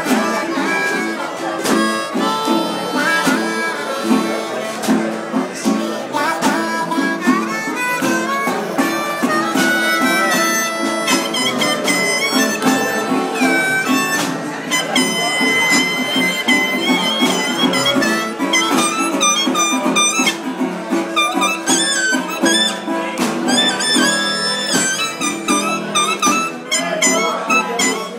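Harmonica played live in a run of quickly changing notes and chords, with a few longer held high notes in the middle.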